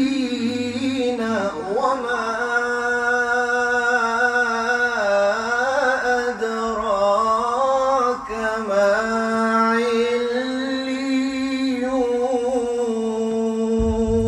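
A man reciting the Qur'an in a melodic, chanted style into a microphone. He holds long drawn-out notes with ornamented rises and falls in pitch, and the voice stops near the end.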